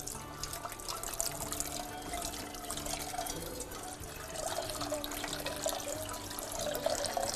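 Kitchen tap running into a metal cooking pot in the sink, water splashing as the pot is rinsed out.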